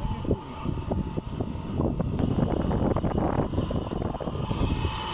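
Wind buffeting and rumbling on the microphone of a moving vehicle, with irregular gusts over a steady low road and engine drone.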